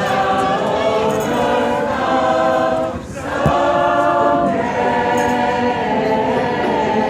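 A large crowd of voices singing together in unison, sustained notes with a brief break about three seconds in.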